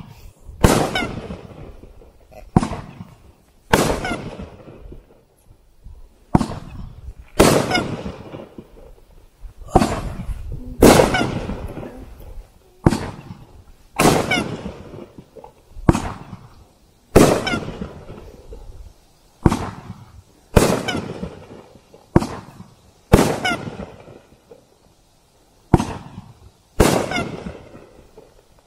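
A 500-gram 'Crack of Dawn' firework cake firing shot after shot, one aerial burst every second or two. Each burst is a sharp bang followed by a fading tail.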